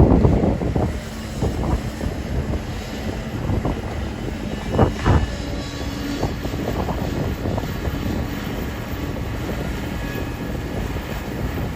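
Kobelco hydraulic excavator's diesel engine running steadily under load, with repeated knocks and clunks, two louder ones about five seconds in.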